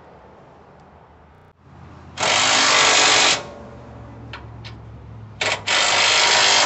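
Cordless drill run in loud bursts: one of about a second, then a short blip and another burst near the end.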